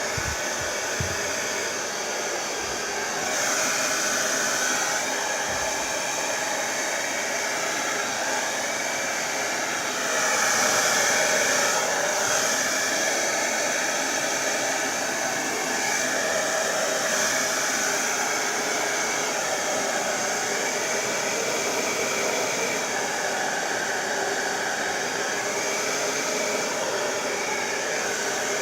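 BaByliss Turbo Power 2200 hairdryer running continuously: a loud, steady rush of air with a motor whine. It swells louder twice, a few seconds in and again about ten seconds in.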